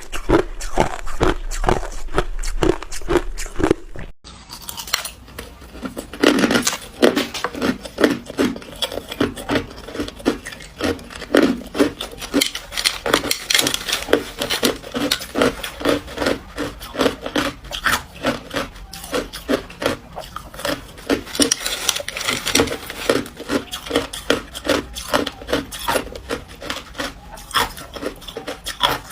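Ice being bitten and chewed close to the microphone: a steady run of crunches, a few a second, broken by a short gap about four seconds in.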